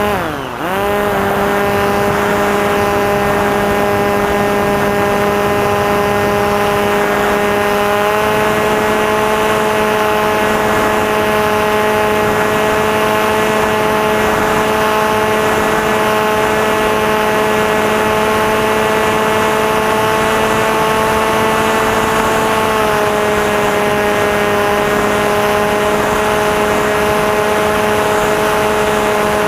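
Electric motor and propeller of a Maxi Swift FPV flying wing giving a steady whine in flight, with a low hum underneath. Right at the start the throttle is briefly chopped: the pitch drops sharply and climbs back within a second. The pitch rises slightly about 8 seconds in and falls slightly about 23 seconds in.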